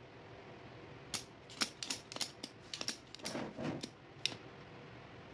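Irregular light clicks and taps from desoldering work on a circuit board: a spring-loaded desoldering pump being cocked and fired, with a soldering iron touching the board.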